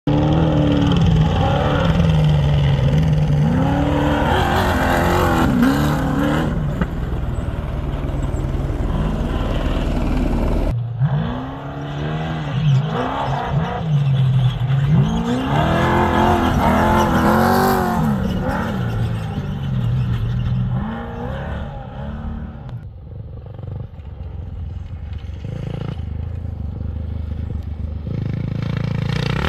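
Trophy truck race engines revving hard, the pitch sweeping up and falling back again and again. A sudden cut about eleven seconds in brings another run of the same revving, which fades off toward the end.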